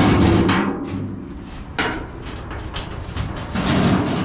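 Large sheet-steel car floor pan being shifted and handled, the metal flexing and banging in irregular low, drum-like crashes, loudest at the start and again near the end.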